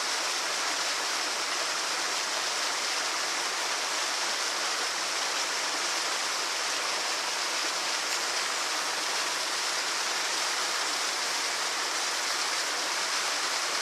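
A small waterfall splashing steadily into a lake: an even, unbroken rush of falling water with a hissy top.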